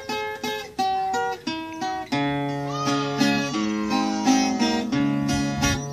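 Viola caipira playing an instrumental introduction: single plucked notes for about two seconds, then fuller picked chords over a steady low bass note.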